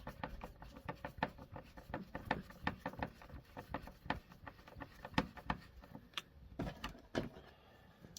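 Light, irregular clicks and taps, several a second, from a screwdriver and hands working small screws into an RC car's box. The clicks thin out for a moment near the end.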